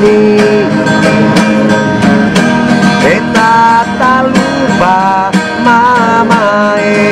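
Outro background music led by guitar, with a steady strummed beat and a gliding melody line.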